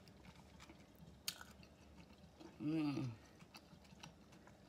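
A person chewing a mouthful of spaghetti pasta salad and meatball, with a few faint clicks. About two and a half seconds in, a short hum that rises and falls in pitch.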